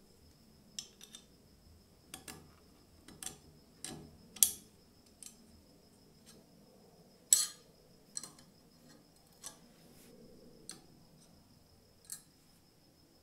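Small sharp metal clicks and taps as the steel cutting lever, its wire spring and the pivot bolt and nut are fitted onto the cast-iron body of a hand tile cutter: about a dozen separate clicks, the loudest two about four and a half and seven seconds in.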